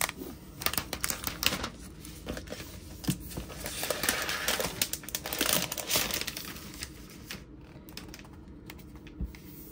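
Thin plastic protective sleeve crinkling and rustling as it is slid off a new laptop, with small clicks and taps from handling; the rustling dies down after about seven seconds.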